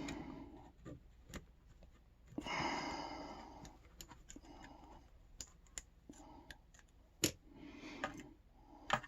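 Small metal clicks and taps of padlock parts being handled and worked apart, with two sharper clicks near the end. A few breathy exhalations come between them.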